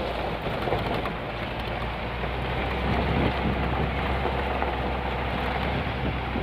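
Steady rush of wind and road noise from a moving vehicle, with wind buffeting the microphone and a low engine drone underneath.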